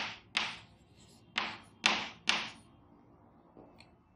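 Chalk tapping and scraping on a chalkboard as a word is handwritten. Five sharp, short strokes come in the first two and a half seconds, then only faint sound.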